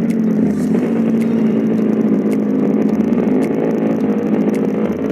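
Single-cylinder-style motorcycle engine running at a steady low speed as the bike rolls slowly through traffic.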